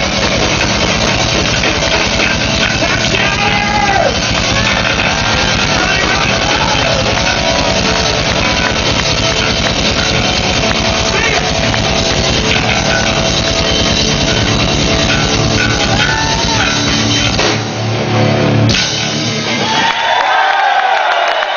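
Live rock band playing loud, with drum kit and electric guitar, the guitar line sliding up and down in pitch. About twenty seconds in the band stops, and crowd cheering and whistling take over.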